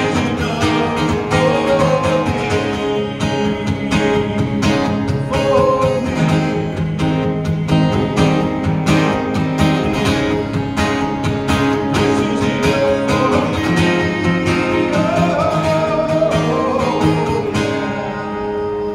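Acoustic-electric guitar strummed and played through PA speakers, with a man singing along in a country style. The strumming stops near the end.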